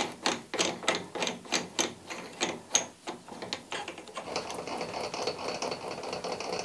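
Steady ratchet-like clicking, about three clicks a second, as the parts of a palm-router toolpost grinder are turned and tightened by hand; the clicks stop about three seconds in. From about four seconds a steady faint hum with a thin high whine follows.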